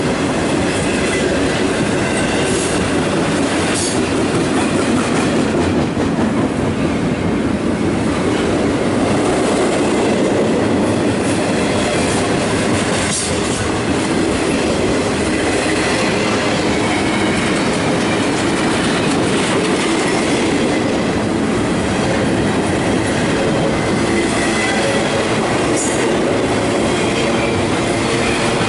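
Freight cars rolling past on two adjacent tracks: intermodal flatcars carrying trailers and a string of tank cars. The wheels on the rails make a loud, steady rumble with clickety-clack over the rail joints.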